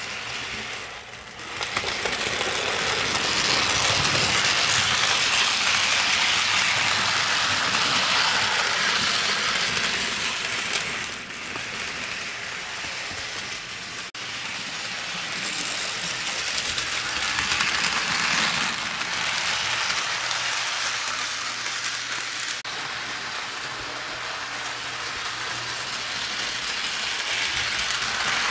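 HO scale model train running on sectional track, driven by a model 2-8-2 steam locomotive: a steady whirr of the electric motor and gears with wheels rattling over the rails. It swells louder twice as the train passes close, with a brief dip just before the middle.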